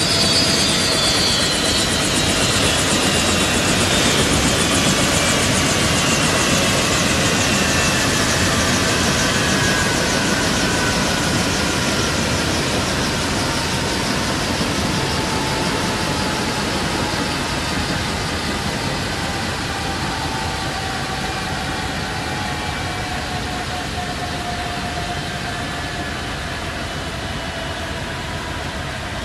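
Eurocopter AS355 Ecureuil 2 twin-turbine helicopter winding down after shutdown. The turbines' whine falls steadily in pitch and the rushing of the slowing main rotor gradually fades.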